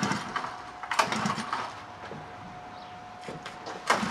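Small Honda 50cc four-stroke engine being cranked with its recoil pull-starter on HHO gas alone, with no petrol: sharp pulls about a second in and again near the end, the engine turning over without catching.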